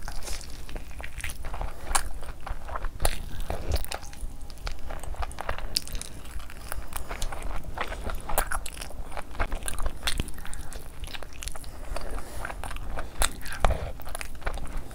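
Close-miked eating sounds: a person biting and chewing meat off a curry-coated bone, a steady run of small clicks and crunches.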